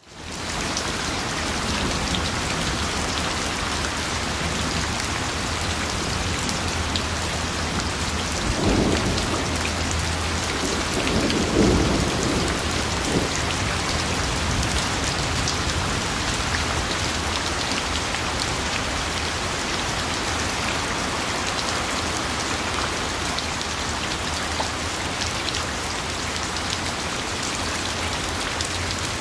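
Steady heavy rain pattering down, a dense even hiss, with two brief low rumbles about nine and twelve seconds in.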